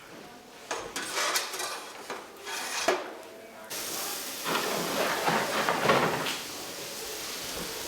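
Clatter of metal trays and utensils being handled: irregular knocks and clinks, then a longer scraping rush in the second half.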